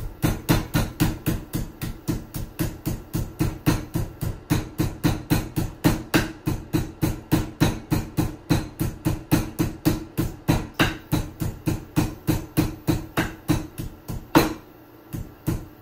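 Wooden rolling pin pounding chicken thighs flat through cling film on a wooden cutting board: a steady run of blows, about four a second. The run ends with one harder blow about a second and a half before the end, followed by a couple of lighter taps.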